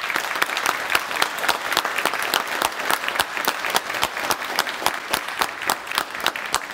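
An audience clapping hands in dense, steady applause.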